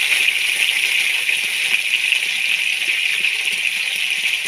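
Cubed potatoes frying in hot mustard oil in an aluminium kadai, a steady sizzle.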